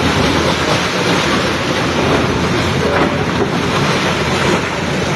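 Excavator working on a demolition: a loud, steady wash of engine and site noise with no distinct impacts.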